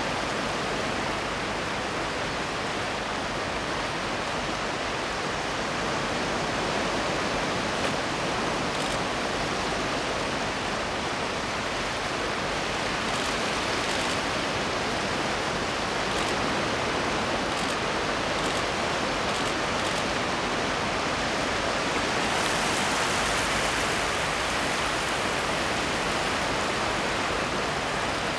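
Sea surf washing over a rocky shore: a steady, unbroken rush of water, a little louder in the last third.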